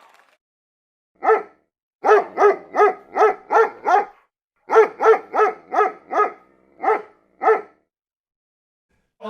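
A dog barking repeatedly: one bark, then a quick run of six, a run of five, and two more spaced barks.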